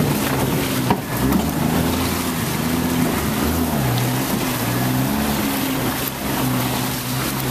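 Jeep Wrangler engine heard from inside the cab, running at low revs with its note rising and falling with the throttle as it drives through a flooded trail, over a steady wash of water sloshing and splashing around the tyres.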